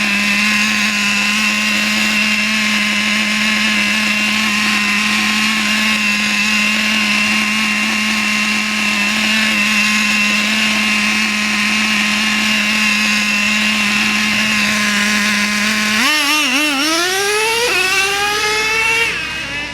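A small vehicle's motor running at a steady high pitch, then dropping sharply about sixteen seconds in and climbing back up in a rising whine as the throttle is eased off and opened again.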